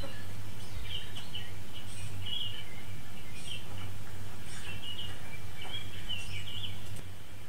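Ambient birdsong: small birds chirping in short, high calls about once a second over a steady low hum, stopping abruptly near the end.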